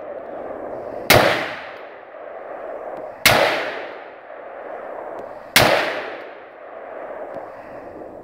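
Smith & Wesson M&P15 AR-15 rifle fired three times, single shots a little over two seconds apart. Each sharp crack is followed by a long echo that dies away over a second or two.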